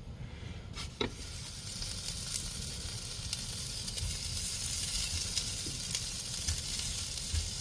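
Duck meat sizzling on a hot disposable grill pan. A short knock about a second in, then the sizzle builds and holds steady.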